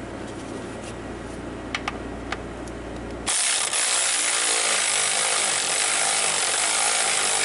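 A steady low hum with a couple of light clicks. About three seconds in, a cordless power ratchet starts up and runs loudly and steadily, driving the bolt of the drive chain's idler sprocket tight.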